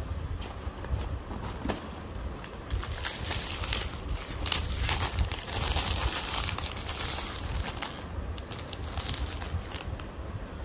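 A parcel's packaging being torn open and crinkled by hand in a run of crackles and rustles, busiest in the middle, over a steady low rumble.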